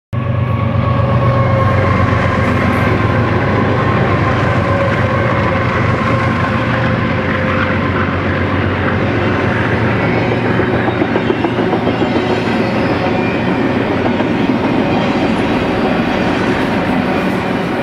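BNSF freight train passing close: the diesel locomotives' engine hum is strong for the first few seconds and then eases. After that comes the steady rolling noise of steel wheels on the rails under double-stack intermodal container cars.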